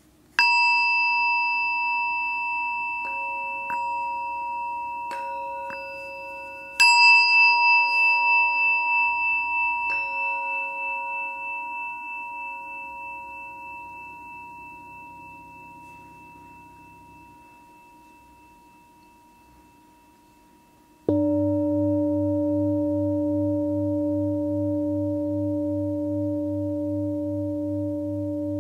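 Meditation bells struck about six times, two of them loudly, each ringing with clear steady tones and fading slowly over many seconds. About 21 seconds in, a deeper bell or bowl tone starts suddenly and holds almost steady, with a slow wavering beat.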